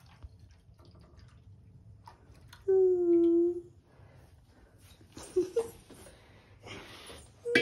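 Milk being poured into chai simmering in a pan, with quiet liquid pouring and bubbling. About three seconds in, a person hums one short, slightly falling note.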